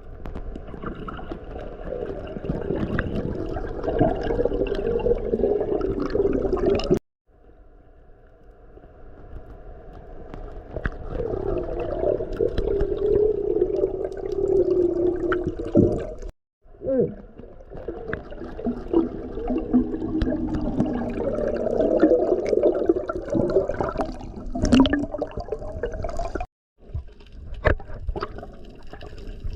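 Muffled underwater water noise picked up by an action camera: a rushing, gurgling wash with scattered clicks, broken off abruptly three times where clips are cut together.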